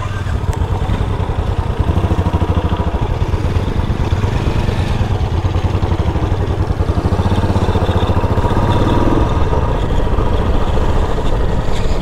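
Motorcycle engine running steadily while riding.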